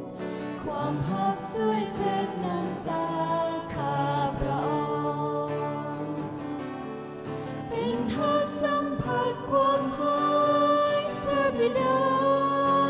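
A Lao Christian worship song: a singing voice holding long notes over instrumental backing.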